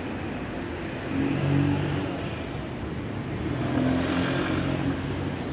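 City street traffic: car engines passing, swelling once about a second in and again past the middle.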